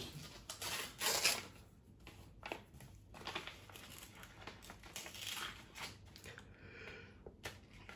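Faint, irregular paper rustling and crinkling as a greeting card and its envelope are opened and handled.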